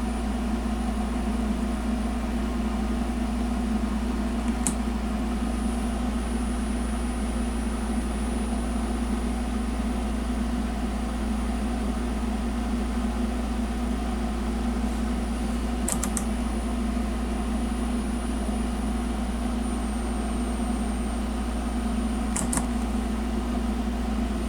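Steady low mechanical hum with a thin high-pitched whine that steps down slightly in pitch about two-thirds of the way through, and a few faint clicks.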